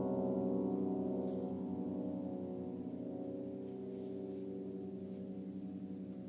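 An upright piano's final chord ringing out and slowly fading, with no new notes struck. The chord keeps sounding after the hands have left the keys.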